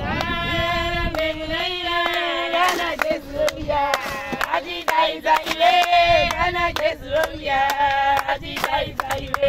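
A group of women singing together, with hand clapping.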